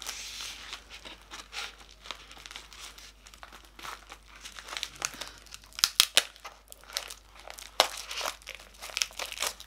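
Parcel packaging crinkling and tearing by hand, in irregular crackles and rips as the address label is torn off, a few sharper rips standing out in the second half.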